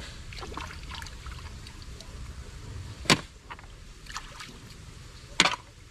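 Low steady rush of shallow stream water, with scattered sharp clicks of boiled snail shells being handled as the meat is picked out. Two louder clicks come about three seconds in and near the end.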